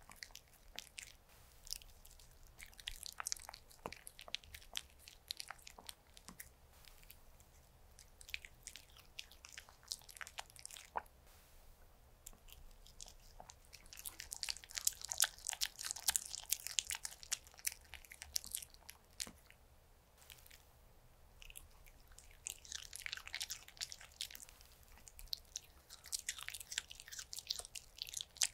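A Pomeranian dog chewing mouthfuls of soft chicken dakgalbi, close up: a run of wet mouth clicks and smacks, busiest in two long spells, one about halfway through and one toward the end.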